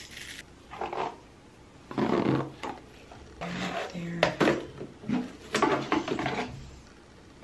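Plastic hairbrushes knocking and clattering as they are dropped one after another into a drawer packed with hair tools, in several separate bursts.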